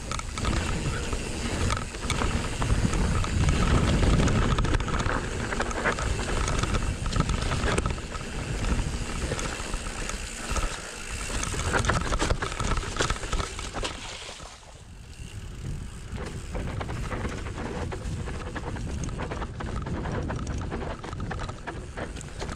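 Mountain bike riding on a dirt trail: wind buffeting the microphone and tyre noise, with scattered clatters over bumps. It quietens briefly about two-thirds of the way through.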